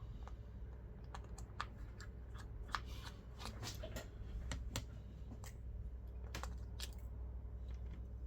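Irregular small clicks and taps of hand tools working on a smartphone's internal parts and connectors, over a steady low hum.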